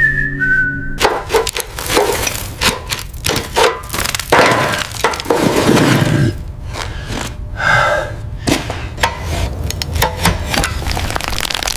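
Irregular knocks, cracks and clanks of hand tools working on a rusty, abandoned motorcycle as it is taken apart, with a stretch of rough scraping partway through.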